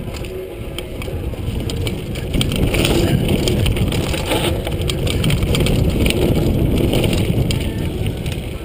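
Mountain bike riding a dirt singletrack: knobby tyres rolling over dirt, with the bike rattling and knocking over bumps and wind rushing across the microphone. It gets louder about two and a half seconds in.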